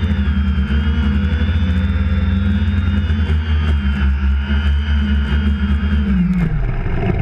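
A small engine running steadily at high speed with a pulsing drone and a higher whine. About six seconds in, its pitch falls and it winds down to a stop.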